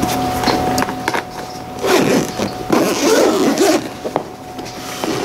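Zipper on a DJI Mini 2 hard-shell carrying case being drawn open in two pulls, about two and three seconds in, with handling clicks from the case.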